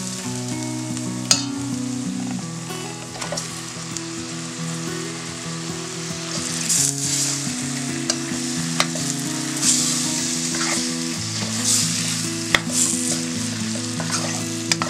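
Oil and onion-tomato masala sizzling in a stainless-steel kadai as raw chicken pieces are added and stirred in with a spatula. The sizzle swells in surges about halfway through as the pieces hit the hot pan, with sharp clicks of the spatula against the steel. A soft background music bed sits underneath.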